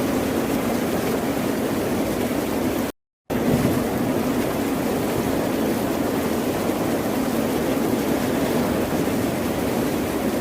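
Ocean surf making a steady, unbroken wash of noise. It cuts out to silence for a moment about three seconds in, then resumes.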